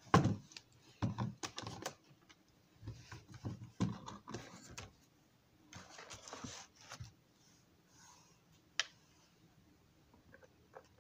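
Hands handling and fitting the walls of a model railroad building, giving clusters of quick clicks and knocks over the first five seconds, then a scraping rustle around six seconds and a single sharp click near nine seconds.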